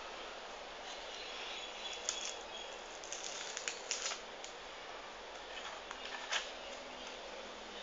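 Light plastic clicks and rattles from handling a toy shotgun blaster, a small cluster about two to four seconds in and one sharper click a couple of seconds later, over a steady hiss.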